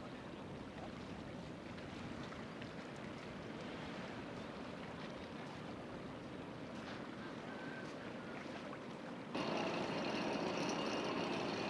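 A steady, even wash of river ambience. About nine seconds in, a louder long-tail boat engine cuts in and runs steadily at a constant pitch.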